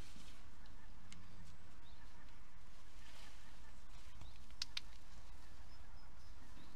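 Outdoor ambience: a steady low rumble with faint, scattered bird chirps, and two sharp clicks in quick succession about four and a half seconds in.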